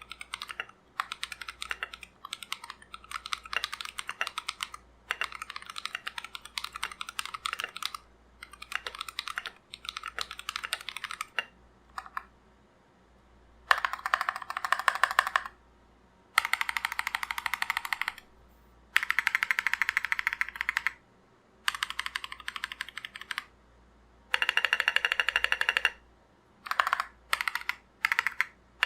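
Mechanical keyboard with Akko CS Lavender Purple switches on an Anne Pro 2 PCB and stock plate in a KBD67 Lite case, being typed on: clacking keystrokes. Steady typing runs for about the first eleven seconds. After a brief pause come several separate bursts of very rapid keystrokes, each lasting one and a half to two seconds, with shorter bursts near the end.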